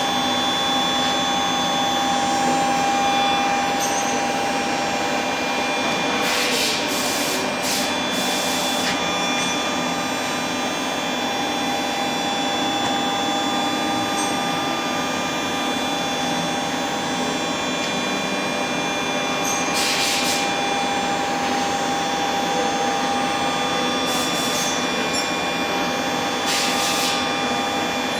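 A 4-axis CNC vertical machining center running, a steady mechanical noise with several fixed whining tones, broken by short hissing bursts about six times.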